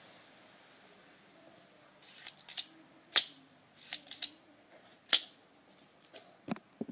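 Sharp metallic clicks and snaps from a Microtech HALO V out-the-front automatic knife being handled. Two loud snaps about two seconds apart stand out, with lighter clicks before, between and near the end.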